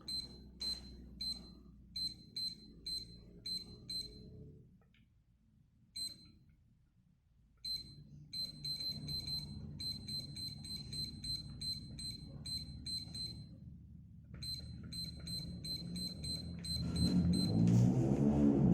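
Digoo DG-AN0211 weather-station alarm clock giving a short high beep for each press of its Up/Down setting buttons, about three a second at first. After a pause of a few seconds with a single beep, a longer, faster run of beeps follows. A louder low sound builds up over the last couple of seconds.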